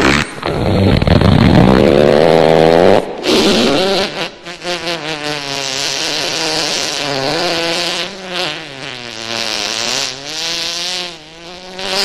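Fart sound effects: a loud low rasping fart for about the first three seconds, then one long buzzing fart whose pitch wavers up and down, fading out near the end.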